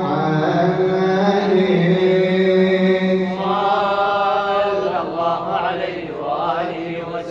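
Men chanting an Arabic mawlid, a devotional praise poem, unaccompanied, in long held notes with ornamented melodic runs near the end.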